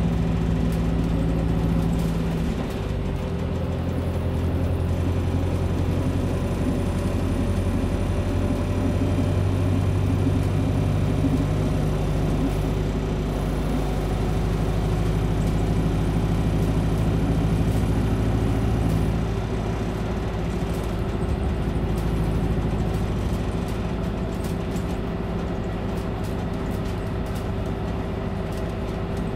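Volvo 7900A Hybrid articulated bus heard from inside the passenger cabin while under way: a steady low drivetrain drone over road noise, shifting in pitch about two seconds in and getting quieter about two-thirds of the way through.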